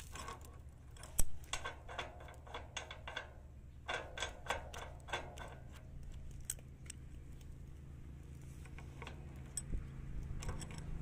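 Bicycle-chain links of a homemade chain wrench clinking and rattling against a rusty wheel hub nut as the chain is handled on and off the nut, in clusters of quick metallic clicks. One sharp metal knock about a second in is the loudest sound.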